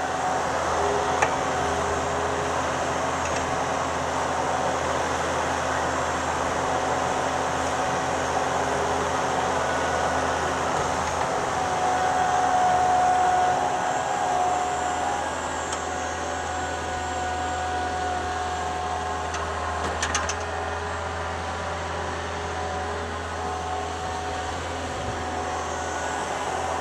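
Thomas 153 skid steer loader's engine running steadily while it works, getting louder for a couple of seconds about halfway, with a single click later on.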